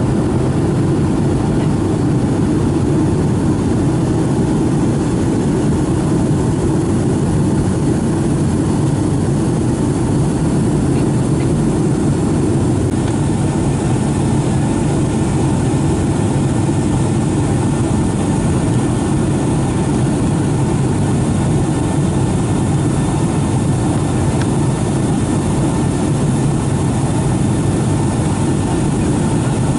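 Steady cabin noise of a Boeing 757-200 airliner in flight: the even hum of its jet engines and the rush of air past the fuselage, with no change in level.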